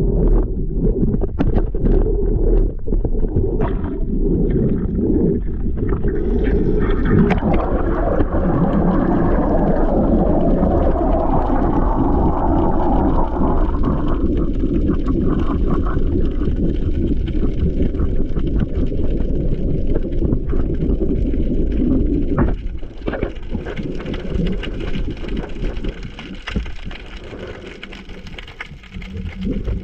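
Muffled water sloshing and rumbling heard through a submerged action camera's waterproof housing, with scattered knocks and clicks; it grows quieter about three quarters of the way through.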